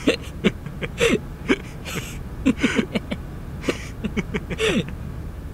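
A cartoon character's voice making repeated short squeaky whimpers that slide down in pitch, mixed with breathy puffs and hisses of air.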